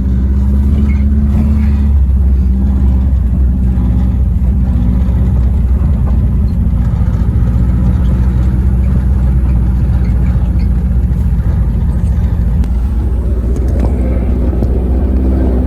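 1973 Volkswagen Karmann Ghia's air-cooled flat-four engine pulling the car along in low gear, a steady low drone.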